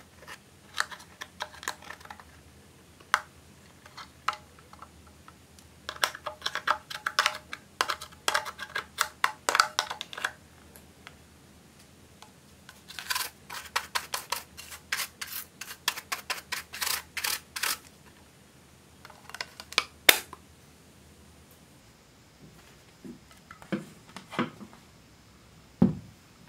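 Quick clusters of sharp clicks and scratches: a metal spatula and a plastic brush scraping and tapping against a plastic eyeshadow palette, breaking pressed powder out of its pans. One loud click about twenty seconds in, then a few duller knocks near the end.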